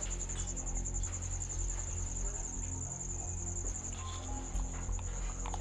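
Crickets chirping in a steady, fast-pulsing high-pitched trill over a low steady hum.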